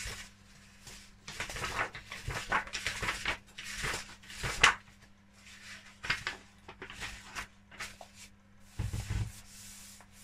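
Paper pages of a large book being turned by hand: a series of papery swishes and rustles, with a duller thump near the end as the opened pages are pressed flat.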